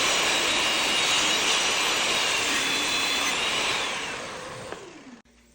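Table saw running, then switched off and winding down, its pitch falling until it stops about five seconds in.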